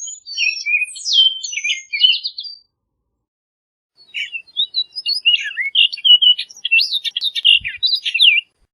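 Orchard oriole singing two song phrases, each a quick run of varied high notes with rising and falling slurs: a short phrase at the start, then a longer one after a pause of about a second and a half.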